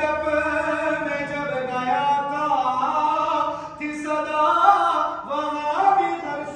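A man's voice singing a devotional Urdu manqabat in praise of Ali. He holds long notes that slide between pitches, with short breaks for breath about four and five seconds in.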